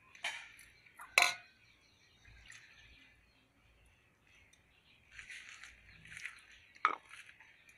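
A metal spoon clinking against the bowls twice, the second clink the loudest, then soft rustling of shredded vegetables and dishes being handled, with one more clink near the end.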